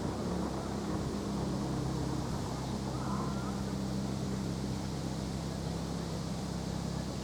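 Steady low engine drone, with a wash of wind noise over it.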